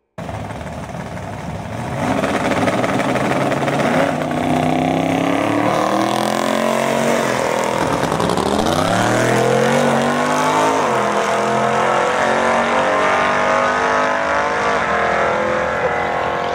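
Twin-turbo Pontiac Trans Am drag car running at full throttle down the strip. The engine pitch climbs and drops back twice at gear changes.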